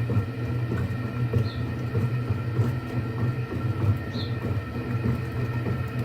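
GE top-load washing machine running its wash cycle, with a steady low motor hum and a faint short high chirp twice. The owner takes the hum most likely for the motor, though it could be a bearing.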